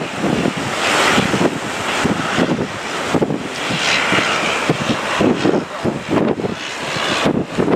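Strong wind buffeting the microphone over the rush of surf, swelling into louder gusts about a second in and again about four seconds in.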